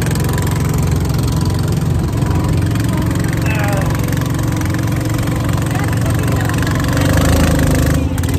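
Small petrol engine driving a boat, running steadily under way, with water rushing past the hull.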